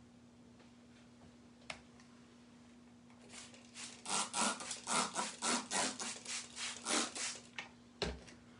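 Brisk hand rubbing on a tabletop, about three strokes a second for a few seconds, of a wet wipe scrubbing ink off, ending in a low thump.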